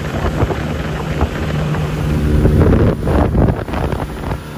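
Dinghy outboard motor running at speed, with wind buffeting the microphone.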